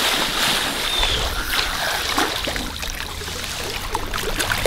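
Water splashing and churning as a person plunges into an inflatable pool, loudest at the start, then sloshing and trickling as the water settles.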